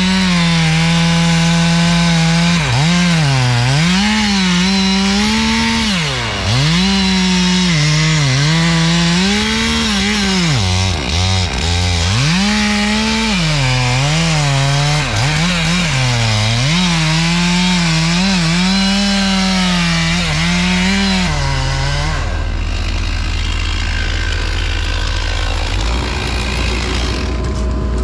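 Stihl MS 461 two-stroke chainsaw cutting through wood at high revs, its engine note dipping again and again as the chain bogs in the cut and then picking back up. It stops about three-quarters of the way through, leaving a lower engine rumble.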